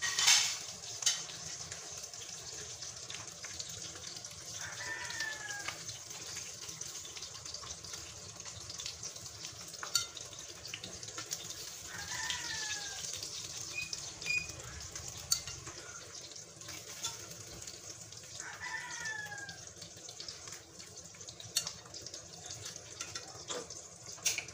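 Oil sizzling steadily around pan-fried milkfish, while metal tongs click now and then against the pan and plate, with a loud clatter right at the start. A rooster crows three times in the background, a short falling call about every seven seconds.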